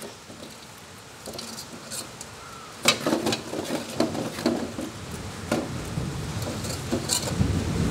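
Metal ladle stirring a thick, sizzling masala gravy in a thin iron kadai on a gas flame, with a run of scrapes and knocks of the ladle against the pan from about three seconds in. A low rumble of thunder builds near the end.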